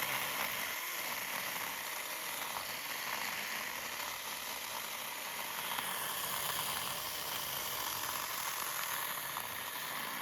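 Handheld battery-powered mini chainsaw cutting through a small tree, the chain in the wood making a steady rasping hiss.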